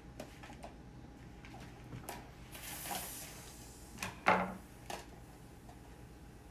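Scissors clicking at the knot of a balloon, then a short soft hiss of air escaping about two and a half seconds in, as the balloon is let down inside a set chocolate shell. About four seconds in comes a sharp clatter as the metal scissors are put down on the wooden tabletop, the loudest sound here.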